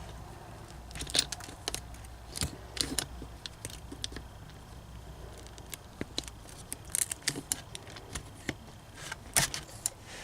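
Self-adjusting wire stripper/crimper being worked on 14 AWG wire: irregular clicks and snaps from the tool's jaws and handles, with rustling, the loudest snap near the end.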